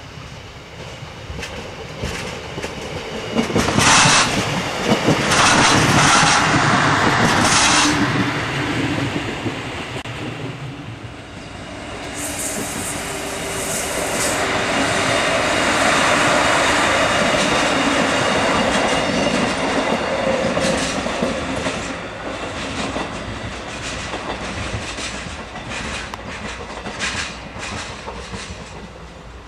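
DB class 628 diesel railcar running over points and crossings, its wheels clacking and rattling over the rail joints and frogs. This is the rattle the 628 is known for on pointwork. The clacking is loudest about four to eight seconds in, swells again in the middle, then fades to lighter clicks near the end.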